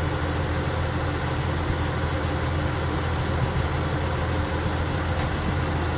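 Semi truck's diesel engine idling, a steady low hum, with one faint click about five seconds in.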